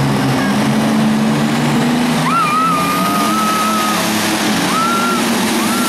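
Modified pulling tractor's engine running hard at high revs under load as it drags the weight-transfer sled, its pitch shifting slightly. From about two seconds in, a high whistling tone rides over it, breaking off and returning a couple of times.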